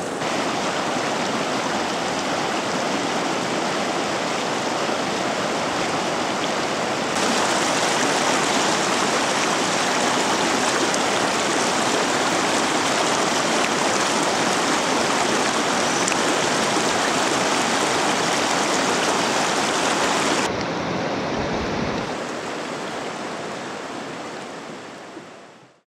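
River water rushing over rocky shoals: a steady wash of noise. It gets a little louder about seven seconds in, drops back about twenty seconds in, and fades out at the end.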